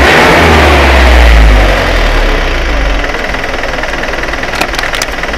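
Loaded truck's engine running under load on a hill road, loud for about two seconds and then settling to a lower, steadier note. A few short clicks come near the end.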